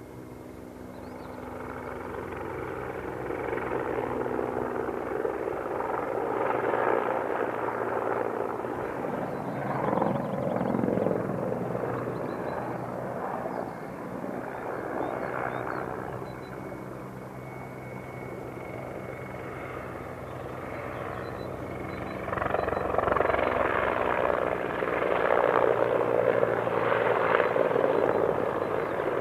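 Mil Mi-24P attack helicopter flying past, its rotor beating and engines running. The sound swells to a peak about ten seconds in, eases off, then grows loudest again near the end as the helicopter comes closer.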